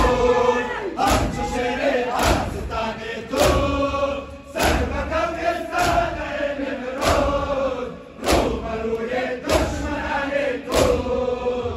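A crowd of men beating their chests in unison during matam, the Shia mourning ritual: one loud collective slap about every 1.2 seconds, about ten in all, under the chanting of a noha.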